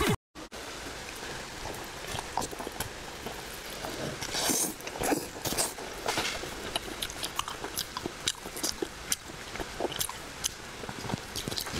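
A person biting and chewing pork belly with cilantro, heard as irregular mouth clicks and crackles, loudest about five seconds in.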